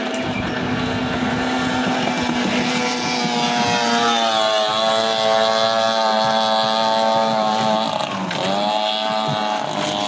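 15 hp outboard engines on racing longboats running. The engine pitch climbs about three to four seconds in and holds steady, then dips briefly and climbs again about eight seconds in, over a steady lower drone.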